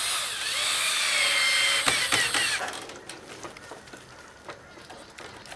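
Ryobi cordless drill whining as it drives a self-tapping screw through a conduit saddle into a wooden fence. The motor fades and stops a little under three seconds in as its battery goes flat, followed by a few faint clicks.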